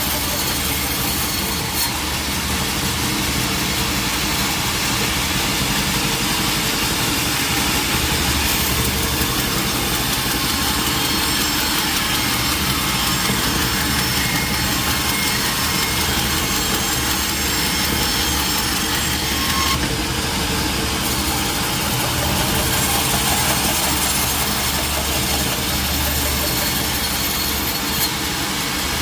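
Sawmill machinery running steadily: a constant engine drone with a continuous hiss and no break.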